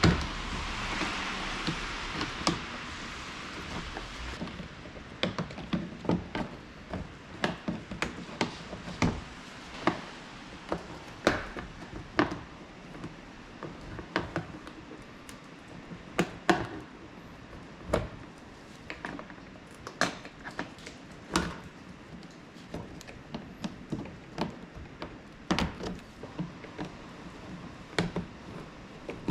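Irregular clicks, taps and knocks of hand tools and small parts being handled while working under a car, with a hiss in the first few seconds.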